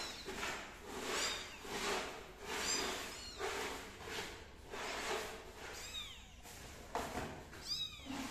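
Tiny kittens mewing: short, thin, high-pitched calls repeated every second or so, with a gap of a couple of seconds in the middle.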